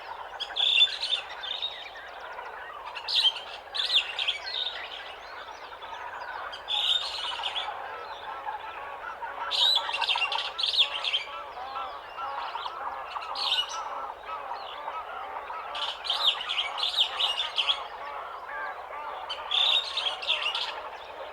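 Morning jungle bird chorus of an African ambience recording: many birds chirping at once, with louder bursts of high, rapid calls every two to three seconds.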